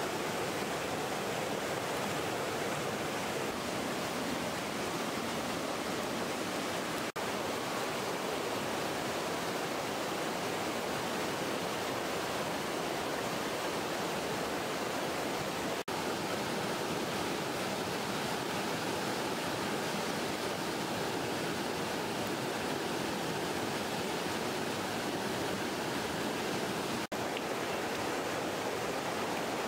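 Steady rush of flowing river water, broken by three very brief gaps.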